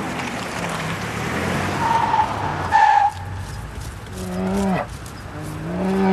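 A car drives along the road, its engine and tyres making a steady rumble, with a brief high tone, the loudest sound, about three seconds in. Then two drawn-out low animal calls, each falling in pitch at its end.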